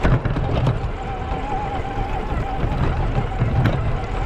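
Electric motor and gear whine of a Traxxas TRX-4 RC crawler driving, heard close up from the camera mounted on the truck, a steady tone that wavers with the throttle. Low rumble and a few sharp knocks from the tyres and chassis going over rough trail, one near the start and one near the end.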